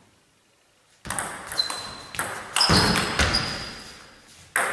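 Table tennis ball clicking off bats and the table, starting about a second in: six sharp clicks about half a second apart, some with a short high ring, each trailing off in the hall's echo.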